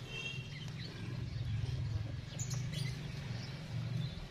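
Faint bird chirps, strongest near the start, over a steady low hum.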